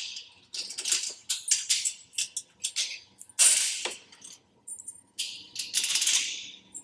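Wrench and nuts clicking and rattling on metal as nuts and lock washers are worked off 5/16 bolts on the sign's mounting bracket, in short irregular bursts with two longer rattles in the middle and near the end.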